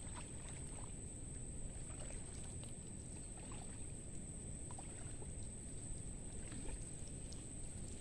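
Soft water sloshing and lapping around the legs of a person wading in a shallow river, over a low steady rumble, with a few faint irregular ticks.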